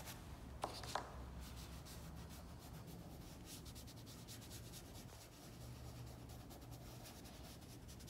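Dry pastel stick scratching and rubbing on drawing paper in short, irregular shading strokes, faint. Two small clicks near the start.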